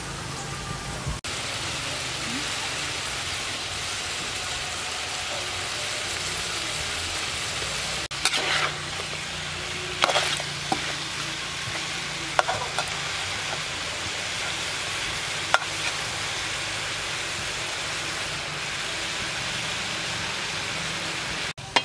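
Pork ribs and pineapple chunks sizzling steadily in a wok while being stir-fried, with a metal spatula knocking and scraping against the pan a few times.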